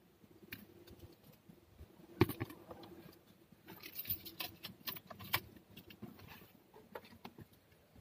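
Scattered light clicks and rattles of car wiring and small hand tools being handled. The sharpest click comes about two seconds in, and a cluster of clicks follows between about four and five seconds.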